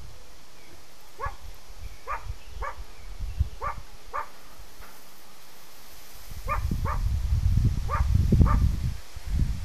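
A dog barking repeatedly in short, pitched barks, about ten of them at uneven intervals. A louder low rumble runs through the second half.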